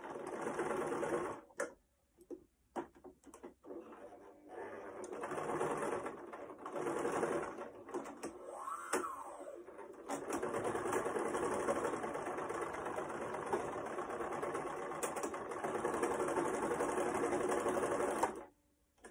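Small electric household sewing machine stitching fabric. It runs in short bursts with pauses during the first half, then in one long steady run that stops abruptly shortly before the end.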